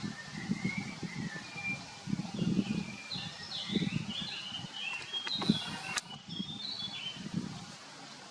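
A songbird singing a quick run of short high notes, over irregular low rumbling with a sharp click about halfway through.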